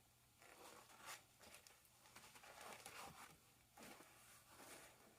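Faint rustling and crinkling of craft vinyl sheets being handled, with a few soft ticks.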